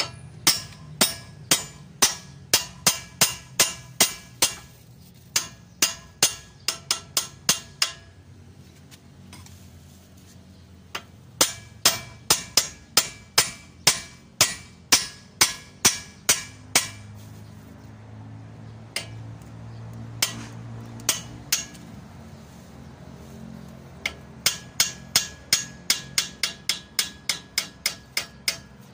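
Hammer blows driving a king pin down into the steering knuckle of an Isuzu Elf truck's front axle, each a sharp metal-on-metal strike. The blows come in runs of about two to three a second, with a few pauses between runs.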